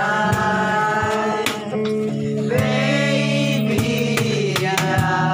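Several men singing together in a harana serenade, accompanied by a strummed acoustic guitar, with long held notes.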